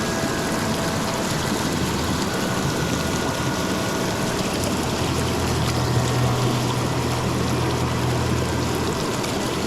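Flowing river water rushing steadily, with a low steady hum joining for a few seconds past the middle.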